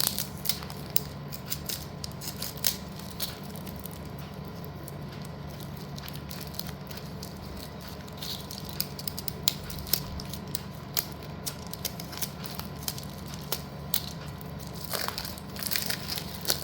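Hard slate pencil bars clicking and tapping against each other as they are handled, in scattered sharp clicks with a few louder clusters, over a steady low hum.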